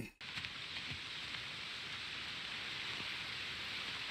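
Steady rush of a waterfall and stream, an even hiss of running water that cuts in suddenly just after the start.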